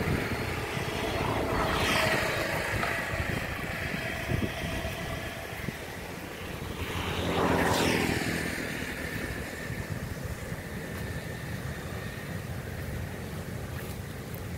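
Steady rush of water pouring down a concrete sluice channel below a reservoir. Over it, a vehicle passes, swelling and fading about seven to eight seconds in, and a fainter one passes about two seconds in.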